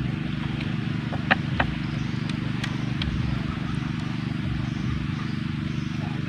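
Steady low rumble, with two sharp clicks about a second and a half in.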